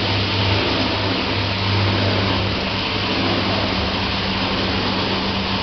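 Hobart Ecomax hood-type commercial dishwasher running a wash cycle: a steady pump hum over an even rush of water spraying inside the closed hood.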